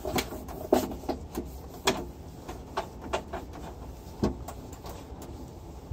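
A cloth being rubbed over a turntable's deck in irregular wiping strokes, with a few light knocks of hand and cloth against it.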